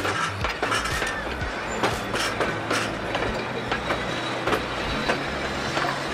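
Wooden railway passenger carriages rolling past, their wheels and running gear clicking and knocking irregularly over the rail joints above a steady low rumble.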